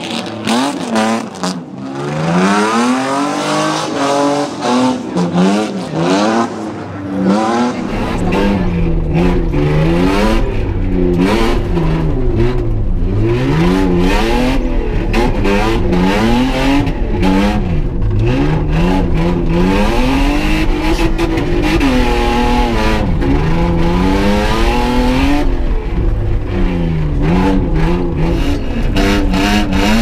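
BMW 525i (E34) rally car's 2.5-litre straight-six engine revving hard and falling back again and again as it is driven through a dirt slalom, the pitch climbing and dropping every second or two. After about eight seconds it is heard from inside the stripped cabin, with a deep, steady rumble under the engine note.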